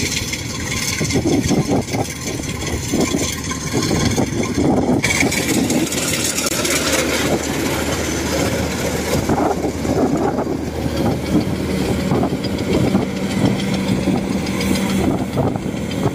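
Thai-built 105 rice combine harvester running as it cuts and threshes rice: steady, dense engine and machinery noise, with a steady low hum joining about halfway through.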